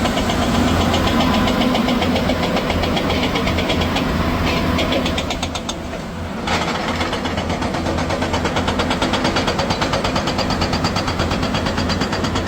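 Construction machine's diesel engine running with a fast, even clatter; it drops away briefly around the middle, then comes back abruptly about six and a half seconds in.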